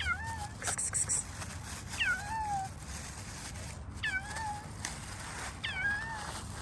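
Stray cat giving four squeaky, high-pitched meows about two seconds apart, each call dropping in pitch and then levelling off.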